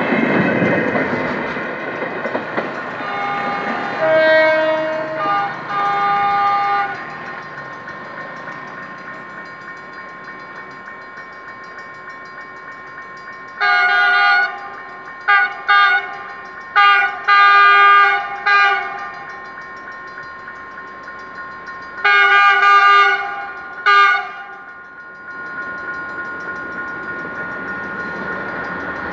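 Passenger train wheels rumbling past a level crossing, then a diesel locomotive's multi-note air horn sounding a string of long and short blasts as an approaching freight train nears the crossing. Near the end the freight train's rumble grows louder as it arrives.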